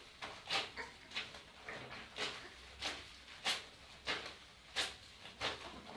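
Laundry being scrubbed by hand, fabric rubbed against fabric in a regular rhythm of swishing strokes, about three every two seconds.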